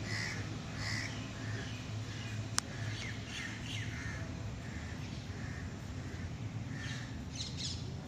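Birds calling outdoors, a run of short repeated calls, with one sharp click about two and a half seconds in.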